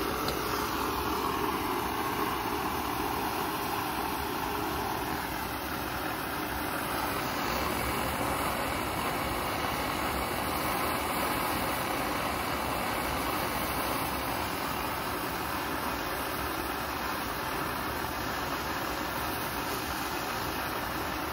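Burner of a 1951 Coleman M1950 pressurized gasoline stove burning with a steady rushing hiss; its tone sinks a little over the first few seconds.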